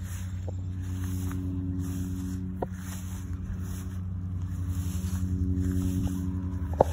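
A motor vehicle's engine running at a steady speed while it drives along a road: a steady low hum with tyre and wind noise that swells and fades, and a few faint clicks.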